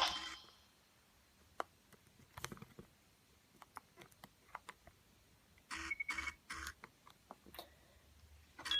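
A Nokia 6070 ringtone cuts off, then faint scattered clicks of the phone's keys and handling as the next ringtone is chosen, with a brief rustle and a short run of faint beeps about six seconds in.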